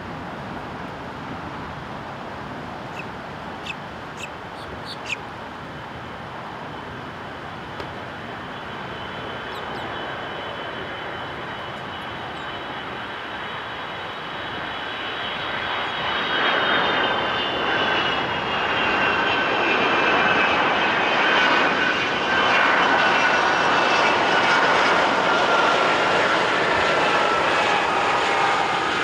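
Boeing 757's twin turbofan engines on final approach: a steady jet rumble that grows louder about halfway through as the plane comes close, with a high whine that slowly falls in pitch as it passes.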